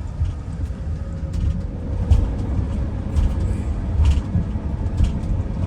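Motorhome cab noise while driving slowly: a steady low rumble of engine and road, with a few faint clicks and rattles.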